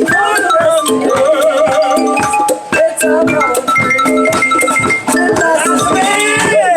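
Music: a melody of held and stepping notes over quick, steady percussion.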